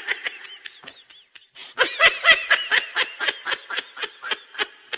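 Laughter in quick, even bursts, about four a second, faint at first and louder from about two seconds in.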